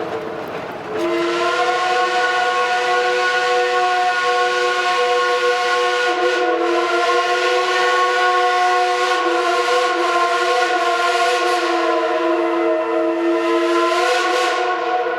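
Steam locomotive chime whistle held in one long blast, several notes sounding together over a hiss of steam. It briefly drops off about a second in, then holds steady to near the end.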